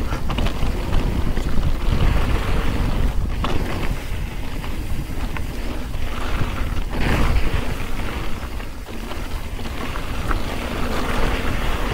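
Mountain bike riding down a rocky dirt singletrack: heavy wind noise on the camera's microphone over the tyres and the bike's rattle, with a few sharper knocks from bumps in the trail.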